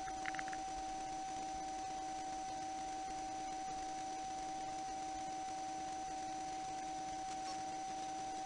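A steady hum with a constant high-pitched tone over a faint hiss, with a few quick chirps about half a second in.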